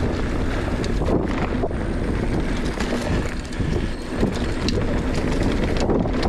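Wind buffeting the microphone of a camera on a mountain bike descending a dirt trail, over the rolling noise of the tyres, with scattered clicks and rattles from the bike over rough ground.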